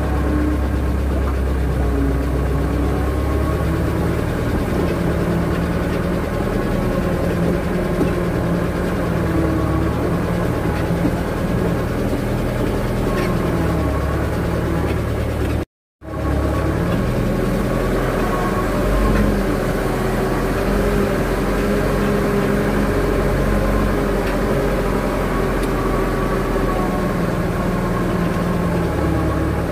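Vehicle engine running steadily while driving, its pitch drifting up and down with speed. The sound cuts out to silence for a moment about halfway through.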